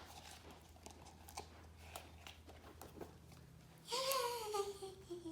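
Small clicks and crinkles of a plastic toy egg and its wrapping being handled. About four seconds in, a child's voice gives a drawn-out wordless sound that falls in pitch.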